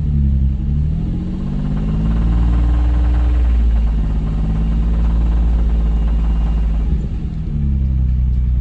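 Nissan 350Z's 3.5-litre V6 engine revved up and down and held at steady revs in between, dipping about seven seconds in and rising again near the end. The owner hears a suspect noise from it around 2200 rpm, which he thinks could come from the valve lifters.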